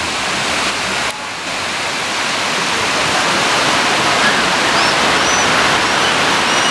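Heavy rain pouring down in a steady, dense hiss that grows slowly louder.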